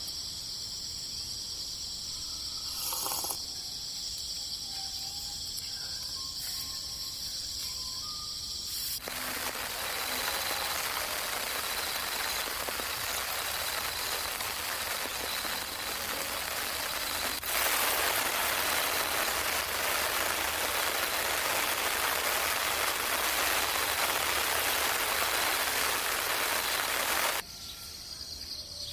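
Steady high-pitched trilling of crickets or other insects with a few short bird chirps. Then a sudden switch to an even hiss of falling rain, which jumps louder about halfway through and stops abruptly near the end.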